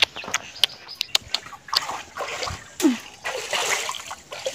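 Pond water splashing and sloshing as a wicker basket of broken crabs is dunked and swished to wash the mud out of them. A few sharp clicks and knocks come before the splashing begins.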